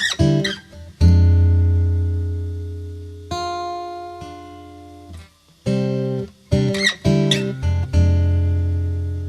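Background music: acoustic guitar strumming chords, each chord ringing out and slowly fading before the next strum.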